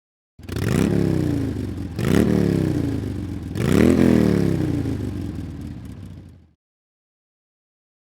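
A motor revs up sharply three times, each time winding down slowly, and cuts off abruptly about six seconds in.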